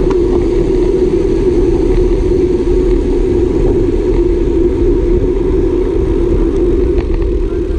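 Steady wind roar over the bike-mounted camera's microphone while riding a road bike at speed, with a strong low rumble.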